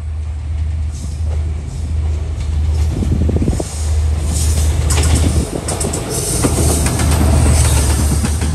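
Diesel-hauled passenger train approaching at high speed and passing close by, its noise growing louder. From about three seconds in come the clatter and knocks of wheels over the rail joints as the locomotive and coaches go past.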